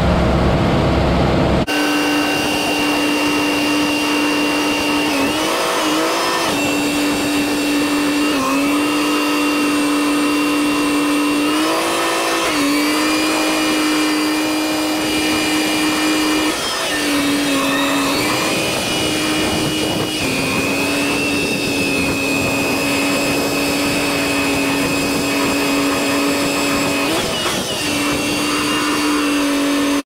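Tractor running in the field pulling a grain cart, its engine and drivetrain giving a steady whine that dips and shifts in pitch now and then. The deeper rumble drops away abruptly a couple of seconds in.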